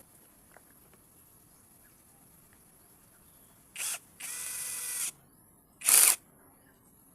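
A mini chainsaw's small electric motor is switched on in three short bursts. The middle burst is a steady whine lasting about a second, and the last, near the end, is the loudest.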